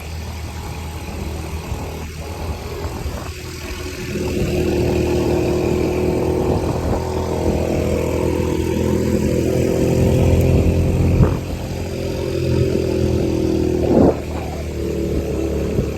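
A motor vehicle's engine running steadily. It picks up and runs harder about four seconds in, then drops back after a sharp knock about eleven seconds in.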